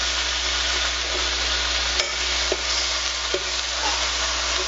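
Bacon strips sizzling in a frying pan with a steady hiss, with a sharp click about two seconds in and a couple of lighter taps as a fork turns the strips in the pan.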